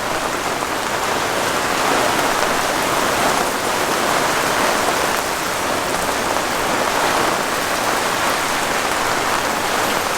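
Heavy rain falling steadily, an even hiss of downpour with no thunder or single impacts standing out.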